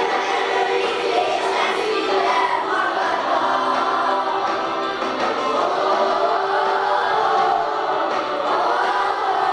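A group of young schoolgirls singing a song together, with the rise and fall of a sung melody throughout.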